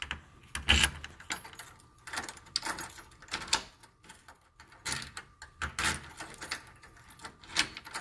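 Keys jangling on a ring and a new polished-brass Ace Hardware deadbolt being worked with its key: a string of sharp metallic clicks and rattles as the bolt is thrown out and drawn back, operating smoothly.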